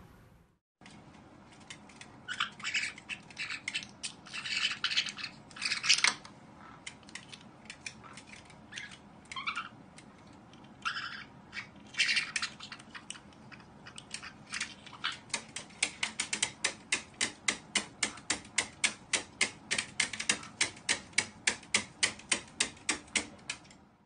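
Two white-bellied caiques squabbling over a toy: irregular squawks and shrieks for the first half. In the second half comes a fast, even run of short, sharp sounds, about three a second.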